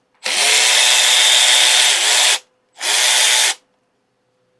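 Cordless power driver run in reverse to back out a fastener, in two bursts: one of about two seconds, then a short one under a second.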